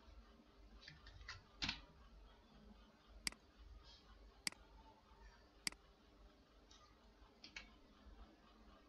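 Computer mouse clicking: three sharp clicks about a second apart, with a few softer ones and a brief soft noise near the start, over quiet room tone.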